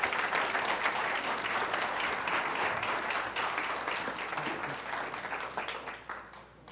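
Seminar audience applauding, a dense patter of many hands clapping that fades out near the end.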